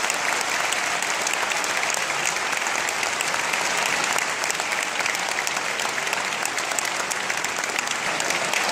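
Audience applauding steadily: the dense, even clatter of many hands clapping.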